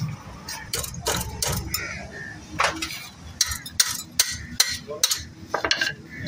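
Ratchet wrench clicking in quick, uneven strokes on the brake caliper bolt of a Hyundai Santro front wheel, with metal tapping on metal.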